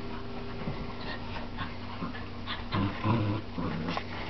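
A Scottish terrier and a Jack Russell terrier play-growling in a tug of war: a few short, low growls starting a little under three seconds in, over a steady background hum.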